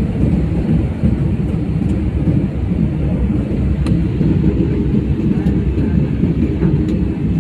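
Airliner cabin noise: a steady, loud low rumble of engines and airflow, with a few faint ticks over it.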